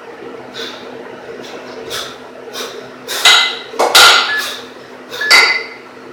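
Two 12 kg kettlebells held in the rack position, clinking and knocking against each other in a series of short strokes. The loudest come about three, four and five and a half seconds in.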